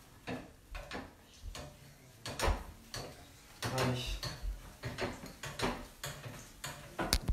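Metal spoon knocking and scraping against a small pan while a breaded egg is turned and basted in hot frying oil: irregular clicks and knocks, a few sharper ones near the end.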